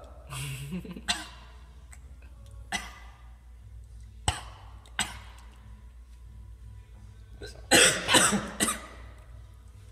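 A person coughing and clearing their throat in short bursts, with a louder run of several coughs near the end, a reaction to the burn of ghost pepper.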